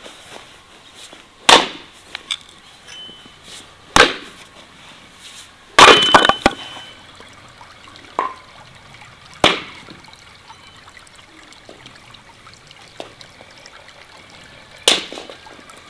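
Sawn log rounds knocking together as they are set down and stacked: sharp, loud wooden knocks every few seconds, with a quick clatter of several around six seconds in.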